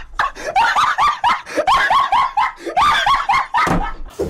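High-pitched cackling laugh dubbed over a clip of a laughing dog: a run of short squeaky syllables, each rising and falling in pitch, about three a second, stopping just before the end.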